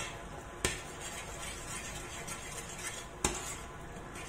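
Metal spoon stirring a cheese sauce in a stainless steel saucepan, scraping round the pan with two sharper clinks against its side, one about half a second in and one about three seconds in.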